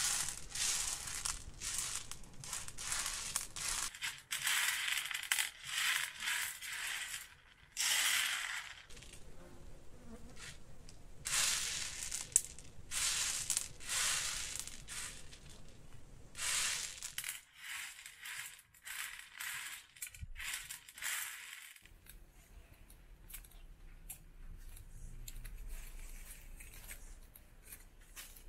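Dried chickpeas swished and raked by hand across a metal tray, a dry rattling rustle in repeated strokes as they are sorted. The strokes stop about two-thirds of the way through, leaving a quieter background with faint ticks.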